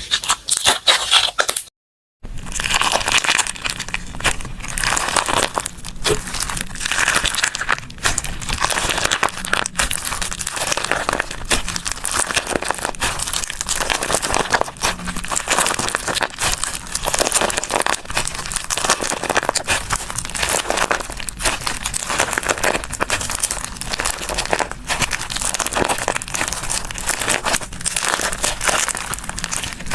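Slime being squished and worked by hand, giving a dense, continuous crackling and popping, with a brief silent break about two seconds in.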